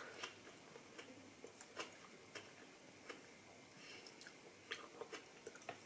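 Very faint chewing: soft, irregular mouth clicks as dark grapes are eaten.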